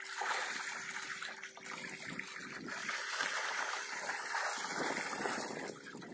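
Fish crowded into a hauled-up cage net, thrashing and splashing in shallow water.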